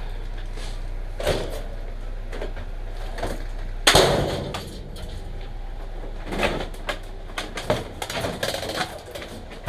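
Objects being handled and shifted among dumpster junk: scattered knocks and clatters, with one loud bang about four seconds in, over a steady low hum that drops away after the bang.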